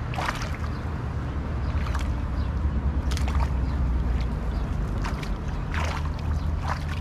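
Shallow river water sloshing and splashing in short bursts as hands work a fishing net and a collapsible ring trap at the water's edge, over a steady low rumble.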